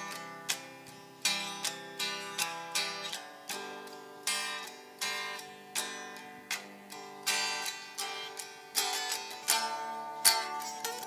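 Music: a plucked-string instrument picking out a melody of single notes, about two a second, each struck sharply and ringing away.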